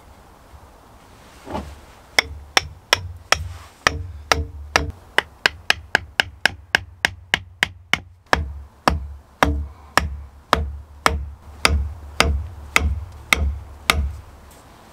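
Hatchet striking wooden pegs to drive them into an earth floor: a run of sharp wooden knocks. They start about two seconds in at about three a second, quicken to about four a second in the middle, then slow to about two a second and stop near the end.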